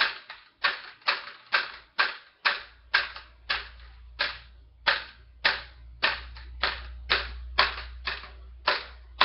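Detuned, slack A string of an Ibanez BTB 5-string bass slapped hard over and over, about two to three sharp smacks a second. This is the trick of slapping a loosened string to bring old, dead strings back to a bright sound.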